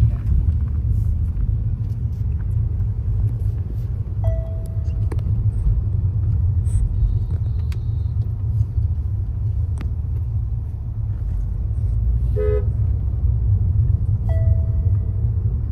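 Steady low rumble of road and engine noise inside a moving car's cabin. Short horn beeps from the surrounding traffic sound about four seconds in, again about twelve seconds in, and near the end.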